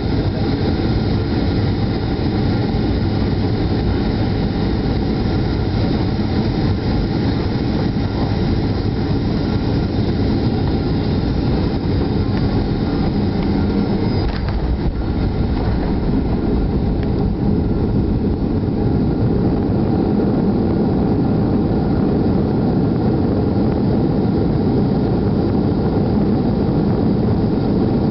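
Cabin noise of a Boeing 737-800 landing: the steady rumble of its CFM56-7B engines and rushing air on short final, then touchdown on a wet runway about halfway through. After that comes a heavier, lower rumble as the jet rolls out with spoilers up.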